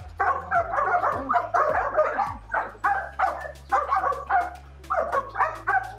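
Several dogs barking rapidly and almost without pause, excited at feeding time.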